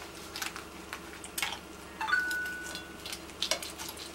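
Knife and fork clicking and scraping against a ceramic plate while carving a roast chicken, with one metal clink about halfway through that rings on as a clear tone for just under a second.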